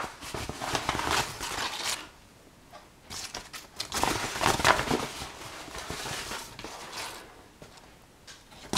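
A metal spoon scoops flour from a flour bag and tips it into a stainless steel pot, with scraping and rustling. The noise comes in bursts during the first two seconds and again from about four seconds in, loudest near four and a half seconds, with quiet between.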